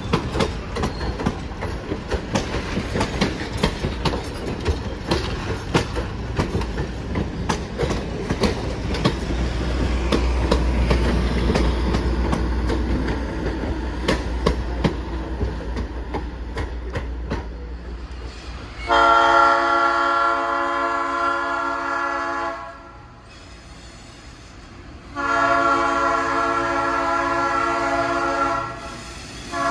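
A 1947 ALCO S2 diesel locomotive and its passenger cars rolling past, with rapid clicks of wheels over rail joints over a low engine rumble. About nineteen seconds in, the locomotive's horn sounds two long blasts of about three and a half seconds each, and a third begins just at the end.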